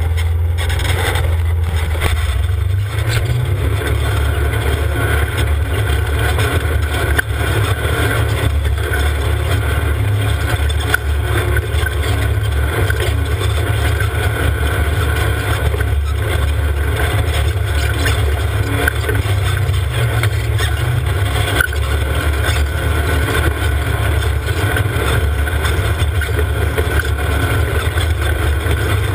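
A UTV's engine running steadily while it drives up a rocky dirt trail, a dense low drone with a wide noisy rumble over it. A few brief knocks come through now and then.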